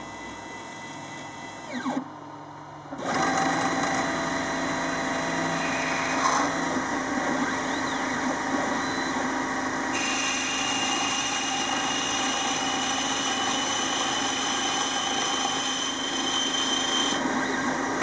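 Small CNC lathe running and turning 5 mm LS59 brass bar stock. The machine noise comes up about three seconds in and holds steady, and a higher whine joins it for several seconds partway through.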